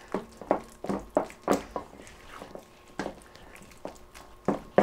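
A utensil knocking against a mixing bowl while stirring a thick cream cheese and mayonnaise mixture: light, irregular knocks, about two or three a second.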